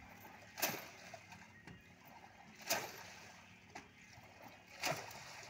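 Water splashing and sloshing in three surges about two seconds apart, as men standing waist-deep heave a wooden mooring pole at a boat's side.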